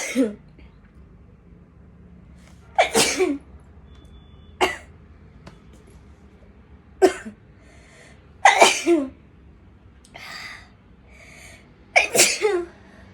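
A woman sneezing again and again, brought on by sneezing powder put up her nose: about six loud sneezes a few seconds apart, one of them short and sharp.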